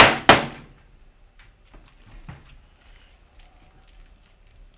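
Two heavy thumps about a third of a second apart right at the start, objects knocked against an office desk, followed by faint light knocks and rustling of handled things.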